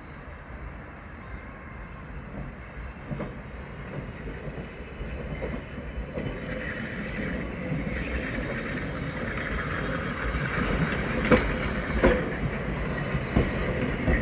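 Passenger coaches of a steam-hauled train rolling toward and past, their wheels rumbling louder as they approach. Near the end the wheels knock sharply over rail joints a few times, over a thin squeal from the wheels on the rails.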